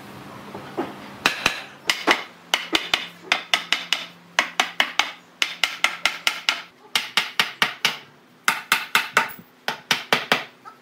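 Hammer blows on a solid-wood bench's backrest slab: runs of quick, sharp knocks, about four a second, with short pauses between runs, starting about a second in.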